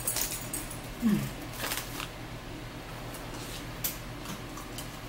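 Handling noises at a table: crinkles, rustles and light clicks as a plastic pouch and then a pair of headphones are picked up and handled, with a short falling hum about a second in.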